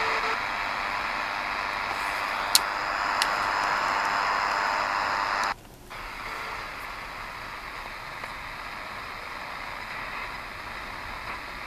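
DEGEN DE1103 shortwave receiver in SSB mode tuned across the 12 MHz band, giving a steady rush of static. A steady whistle stops right at the start, two sharp clicks come a few seconds in, and the sound cuts out briefly near the middle before coming back softer.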